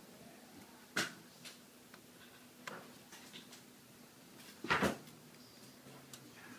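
Scattered sharp clicks and taps of small tools and parts against a laptop's aluminium chassis during reassembly, about half a dozen in all, the loudest a quick double knock near the end.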